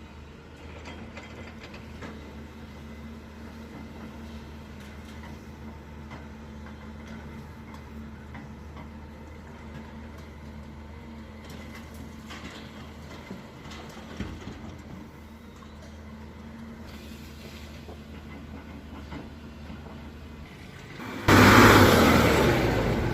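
Hyundai excavator's diesel engine running steadily. Near the end comes a loud, rough burst of noise lasting about two seconds.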